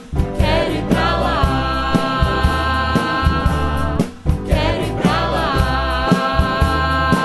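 Song from a live band with drums and guitar, voices singing over a steady beat. The music breaks off briefly twice, at the start and about four seconds in, and a sung phrase with wavering pitch comes in after each break.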